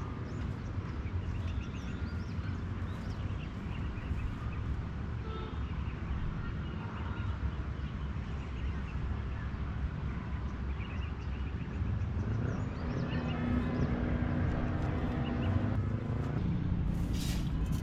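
A motor vehicle's engine running with a steady low rumble; its engine note comes through more strongly from about twelve seconds in.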